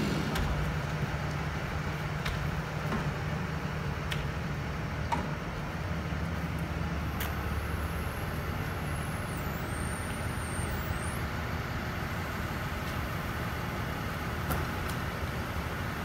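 A large engine idling steadily, a low, even hum with a few faint clicks over it.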